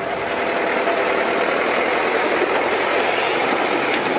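A pulling tractor's engine running steadily at a level pitch, over a dense wash of noise.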